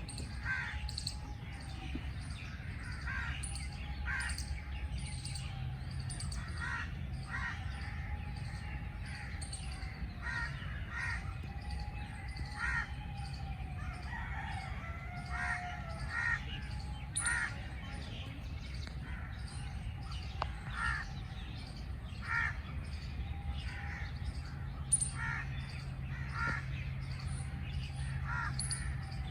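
Several birds calling outdoors: short calls repeated about once a second, with some lower, drawn-out arched calls now and then, over a steady low rumble.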